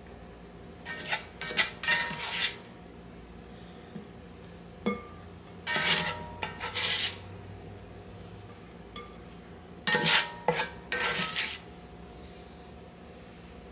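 A slotted spatula scrapes and clatters against a cast-iron skillet as smashed potatoes are scooped out and set into a glass bowl. It comes in three short bursts of a second or two each, a few seconds apart.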